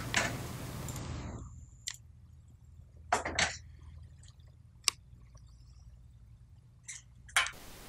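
A phone handset being handled and its buttons pressed: a few scattered clicks and short knocks over a steady low hum, after a short burst of hiss at the start.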